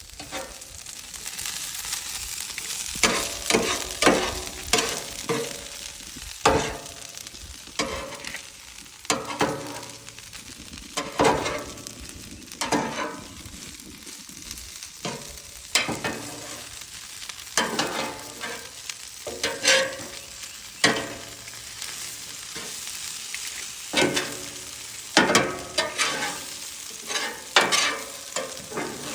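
Food sizzling on a Blackstone flat-top steel griddle, a steady hiss, with frequent sharp clinks and scrapes of a metal utensil turning and stirring it on the cooking surface.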